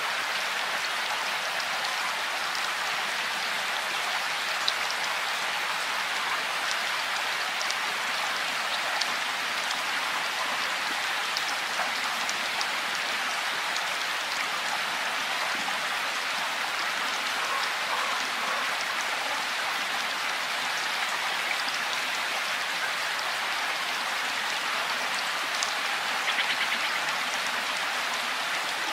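Steady rain falling, an even hiss with individual drops tapping close by now and then, and a quick run of drips near the end.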